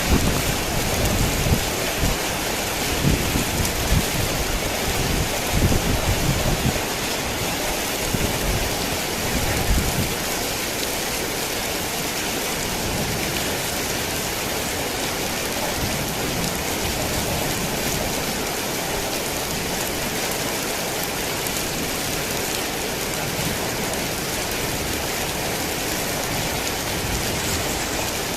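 Heavy rain falling steadily in a rainstorm. Low rumbling thunder swells and fades through roughly the first ten seconds, leaving only the even hiss of the rain.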